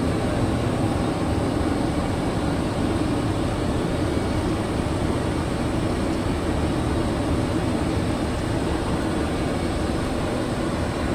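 Steady rushing noise on an Airbus A330 flight deck during the approach: airflow and cabin air-conditioning. The level holds even throughout.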